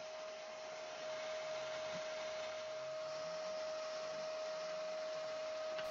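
A faint steady electrical hum, one constant mid-pitched tone over a low hiss: background room tone with no tool running.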